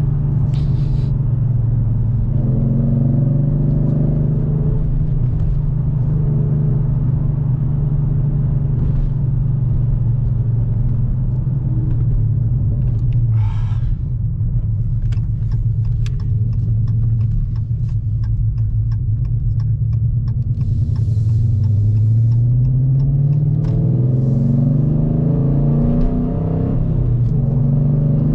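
Dodge Challenger R/T Scat Pack's 6.4-litre 392 HEMI V8, fitted with long-tube headers and a Flowmaster exhaust, running steadily while driving. Its note rises in pitch under acceleration a few seconds in and again over the last several seconds. A run of light, regular ticks comes around the middle.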